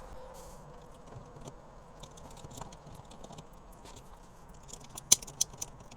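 Small plastic clicks and crackles as the brittle, UV-damaged translucent insert of a Fisker Ocean door handle is pried out of its housing and breaks up in pieces, with a quick run of sharper snaps about five seconds in.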